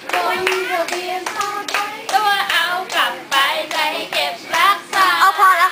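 A group of women clapping their hands, with their voices singing or chanting along.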